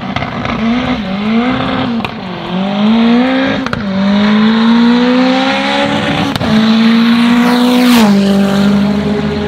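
Drag-racing car accelerating hard down the strip at full throttle. Its engine note climbs and drops back at each of about four gear changes. About eight seconds in, the pitch falls sharply as the car passes close by.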